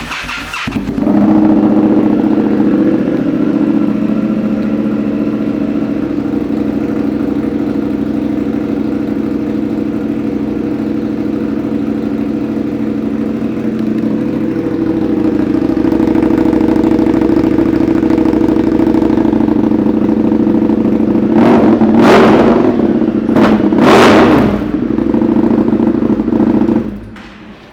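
2019 Indian FTR1200's V-twin engine with an aftermarket exhaust, starting up and idling steadily. It is revved briefly twice near the end, then switched off.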